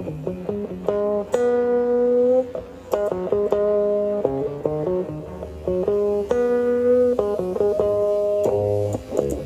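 Guitar music: a melody of quick plucked notes, with two longer held notes about a second and a half in and again near the end.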